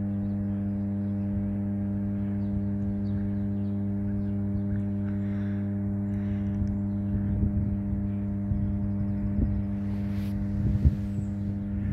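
A steady low electrical-sounding hum whose pitch does not change, made of several evenly spaced tones, with scattered knocks and rustling growing louder over the second half.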